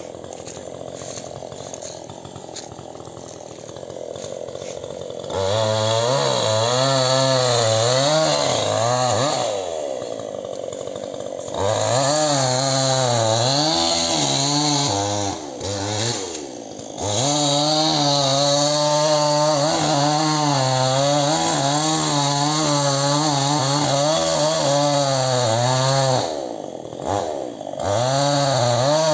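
Chainsaw cutting into a rubber tree trunk. It starts quieter, then runs at high revs from about five seconds in, its pitch wavering as it works through the wood, and eases off briefly a few times.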